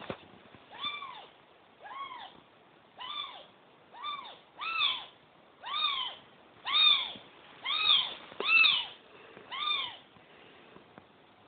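A cat meowing about ten times, roughly once a second, each short call rising and then falling in pitch; the calls grow louder after the first few.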